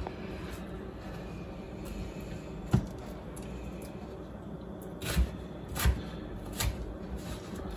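Chef's knife slicing sweet peppers on a wooden cutting board, the blade knocking sharply on the board four times at uneven intervals.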